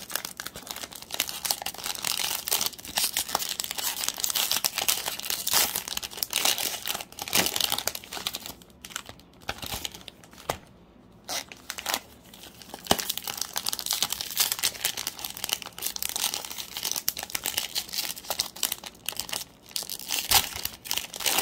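Plastic cello-wrapped trading card packs crinkling and tearing as they are handled and opened by hand, with a quieter pause about halfway through.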